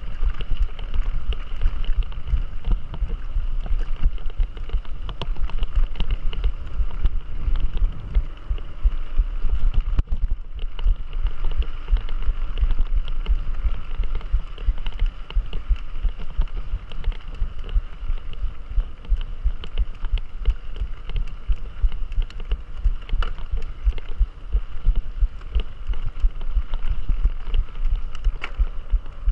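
Mountain bike ride recorded close to the bike: a steady low rumble of dense bumps and knocks from the bike over rough trail, with wind buffeting the microphone.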